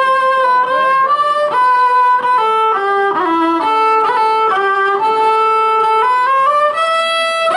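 Amplified fiddle playing a quick single-line melody, its notes stepping up and down several times a second, as the opening of a live folk-punk song.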